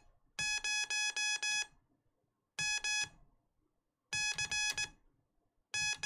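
Morse code practice tone, hand-keyed: a steady buzzy tone of about 800 Hz sends five dahs for a zero, two dahs for M, and dah-dit-dah-dit for C. Near the end it starts the dah of an X, spelling out the call sign M0MCX.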